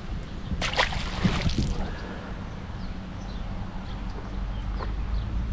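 Water splashing and sloshing for about a second, starting just over half a second in, over a steady low outdoor rumble.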